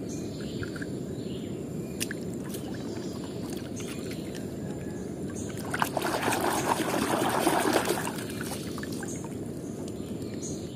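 A hand splashing and churning in a tub of muddy water for about two seconds midway, over a steady low background noise. A few light clicks come before it.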